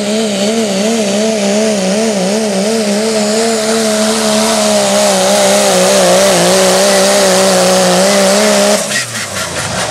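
Turbocharged diesel pickup engine at full throttle pulling a sled: a loud, high-revving drone whose pitch wavers rapidly and sags slightly as the sled loads it down. Near the end it cuts off suddenly and winds down.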